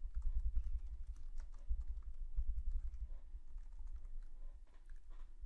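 Typing on a computer keyboard: an irregular run of keystrokes, each click carrying a dull low thud.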